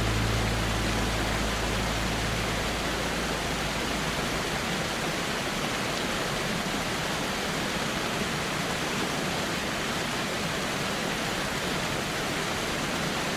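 Steady rushing noise of a cave waterfall, with a low musical drone fading out over the first three seconds or so.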